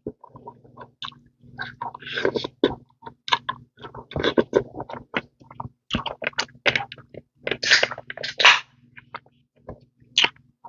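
Close-miked eating of a seafood boil: wet chewing and smacking in short, irregular bursts.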